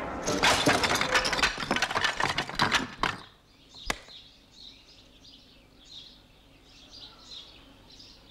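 A rapid, loud rattle of clicks for about three seconds that cuts off abruptly, then a single sharp click. After it, faint bird chirping repeats.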